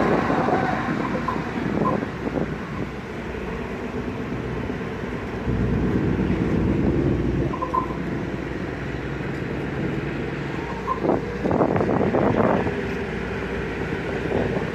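Tugboat's marine diesel engine running with a steady low drone as it pushes against a ship's hull. The drone grows louder about five seconds in and eases back a few seconds later, and rough noisy gusts come near the end.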